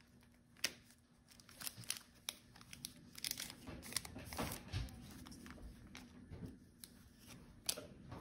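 Foil wrapper of a Pokémon TCG Fusion Strike booster pack being torn open and crinkled by hand, in faint, irregular crackles.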